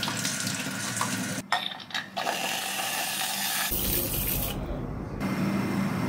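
Kitchen handling sounds in short cuts: a glass bowl clinking, and an aerosol can of whipped cream hissing as it sprays into the bowl.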